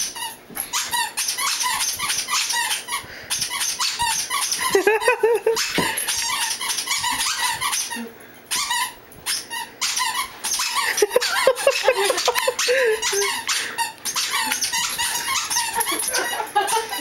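Squeaky dog toys squeaking rapidly, over and over, in quick runs with brief pauses, as they are squeezed in play with a golden retriever puppy.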